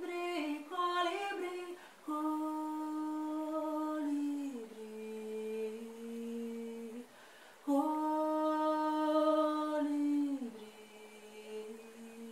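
A woman humming a slow, wordless melody: a few quick notes at first, then two long held phrases, each stepping down to a lower note that is held.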